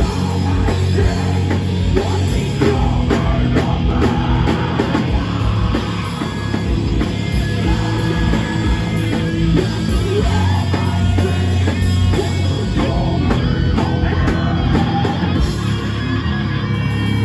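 Heavy rock band playing live and loud: electric guitars and a steadily pounding drum kit, with a vocalist singing into a microphone.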